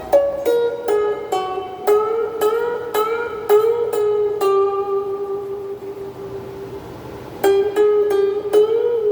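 Donner DST-80 Strat-style electric guitar played through its small included amp: a single-note lead line of picked notes with string bends, and a long held note in the middle.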